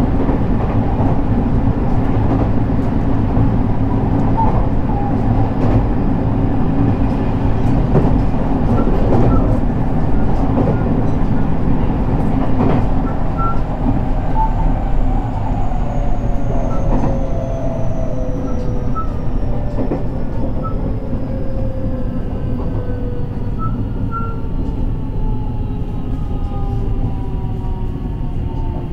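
JR West 223 series 2000-subseries electric train running on the rails with a steady wheel-and-track rumble. From about halfway through, several motor and inverter tones slide steadily downward in pitch as the train slows.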